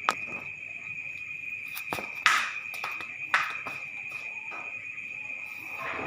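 Crickets trilling steadily on one high note, with a few short sharp knocks, about two and three seconds in.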